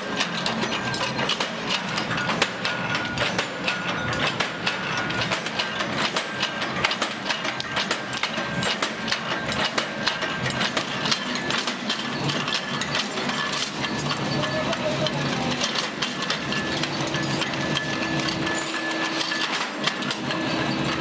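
Bar-cutting machine shearing steel bar stock into short bolt blanks: a continuous mechanical clatter of rapid, irregular metal clanks and knocks.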